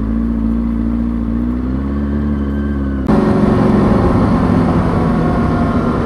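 2003 Kawasaki ZX-6R 636's inline-four engine running steadily at low revs while the bike rolls slowly. About three seconds in, the throttle opens and the engine gets suddenly louder as the bike accelerates, with more wind and road noise.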